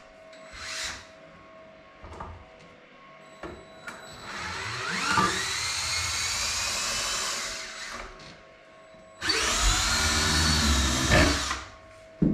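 Handheld power drill run twice, a run of about three and a half seconds and then one of about two seconds, its motor pitch rising as each run starts, drilling at the wall beside a wooden upright. A few light knocks and clicks come before the first run.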